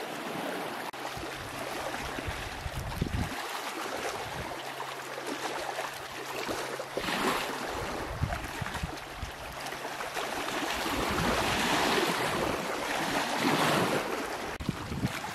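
Wind buffeting the microphone over small waves lapping on a pebble shore, the gusts swelling louder about three-quarters of the way through. A faint steady low hum runs underneath for the first two-thirds.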